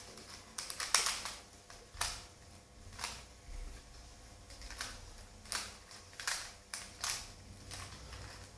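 3x3 Rubik's Cube being turned by hand during a solve: a string of irregular plastic clicks as its layers are twisted, one or two a second.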